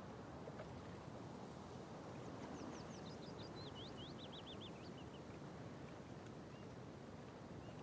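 A small songbird sings one quick phrase of sweeping, high notes, starting about two seconds in and lasting about three seconds, over a steady outdoor hiss of wind and water. A few faint single notes follow near the end.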